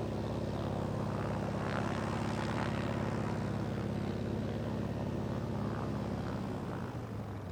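Sukhoi Su-29's Vedeneyev M-14P nine-cylinder supercharged radial engine and propeller running steadily, fading near the end.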